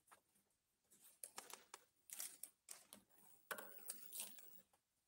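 Faint, irregular rustling of paper: ballot envelopes being opened and ballot papers unfolded during a vote count, in several short bursts.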